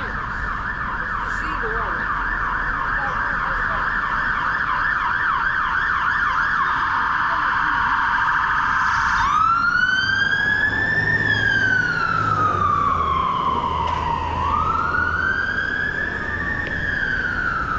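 Emergency vehicle siren on a city street: a rapid yelp for about the first nine seconds, then switching to a slow wail that rises and falls twice. It grows louder towards the switch as the vehicle approaches, and a low engine rumble joins in the second half.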